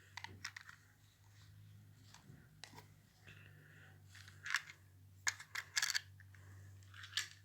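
Light metallic clicks and clinks of a freshly removed screw and hand tools being handled, with a cluster of sharper clicks from about four to six seconds in, over a low steady hum.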